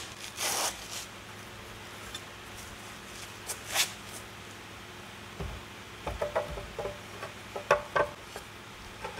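Outboard lower unit gearcase being handled and fitted up toward the midsection, its driveshaft and shift rod being lined up: intermittent scraping and rubbing, then a run of short metal clicks and knocks about six seconds in.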